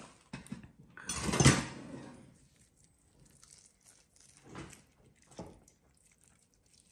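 Kitchen handling noise from squeezing lime halves in a hand-held plastic citrus press over a glass bowl: a loud burst of handling noise about a second long starting about a second in, then two softer, shorter squeezing sounds near the end.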